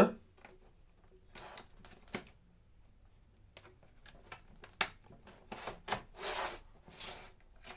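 A plastic pry tool working under the edge of a laptop's plastic bottom cover, with scattered sharp clicks as the cover's snap clips pop loose and short scraping noises between them. The loudest click comes a little before five seconds in.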